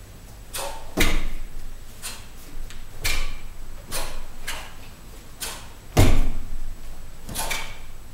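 Sharp snaps of taekwondo uniforms (doboks) cracking with each punch and kick as two martial artists perform techniques together, about ten in irregular succession. A heavier, deeper thump about six seconds in is the loudest of them.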